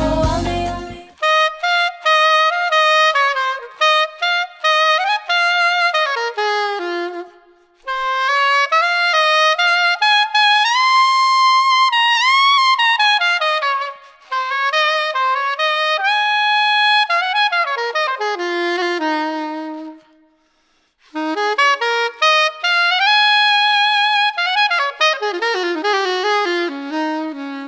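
Yanagisawa SC-992 bronze curved soprano saxophone playing a slow melody unaccompanied, close-miked through a Neumann KM 84 with a little reverb and gentle compression. The backing track drops out about a second in, and the melody breaks twice for breaths, about eight and twenty seconds in.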